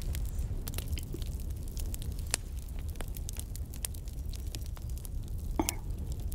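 Campfire crackling: irregular sharp pops and snaps over a steady low rumble, with one louder pop about five and a half seconds in.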